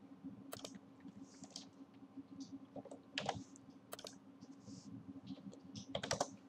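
Faint computer keyboard keystrokes and mouse clicks, scattered single taps with a short cluster of keystrokes near the end, over a steady low hum.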